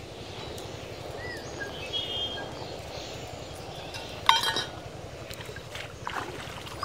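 A small steel bowl clinks once about four seconds in, ringing briefly, against a steady background hiss.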